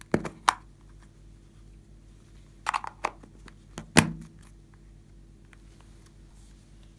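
Sharp plastic clicks and knocks from a small plastic slime tub and its snap-on lid being pried open and handled. Two clicks come right at the start, a cluster follows about two and a half seconds later, and the loudest knock falls about four seconds in.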